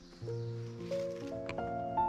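Background music: held notes come in about a quarter second in and step upward in pitch, with one short click about a second and a half in.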